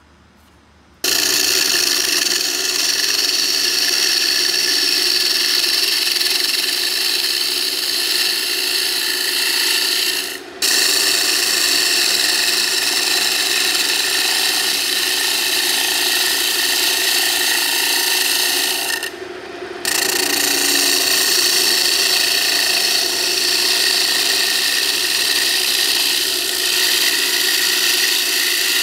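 Lathe chisel cutting the face of a walnut plate spinning on a wood lathe: a steady scraping hiss over the lathe's running, starting about a second in and dipping briefly twice.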